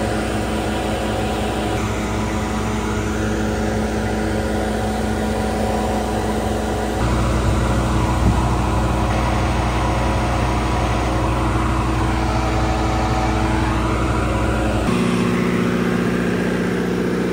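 Standby generator engine running steadily under heavy load from a portable resistive load bank, mixed with the load bank's cooling fans: a steady hum with several fixed tones. The sound turns louder and lower about seven seconds in and shifts again near the end.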